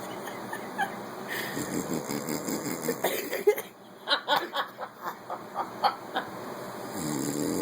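A sleeping man snoring. A run of short, sharp sounds comes about four a second in the middle, and a louder droning snore starts near the end.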